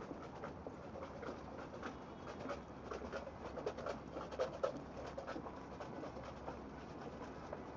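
Rain pattering on umbrellas: a soft hiss with many small scattered ticks of drops, thickest and loudest in the middle, over a low steady city hum.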